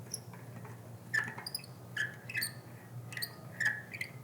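A dry bicycle quick-release skewer squeaking as its cam lever is worked closed against resistance: a string of short, high squeaks about two a second, starting about a second in. The squeak is the sign that the skewer's cam and threads are dry and need lubrication.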